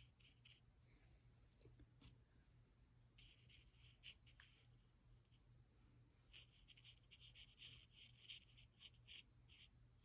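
Faint scratching of a metal dip-pen nib on paper in short strokes: a few at the start, a cluster about a third of the way in, and a longer run through the second half. A low steady hum runs underneath.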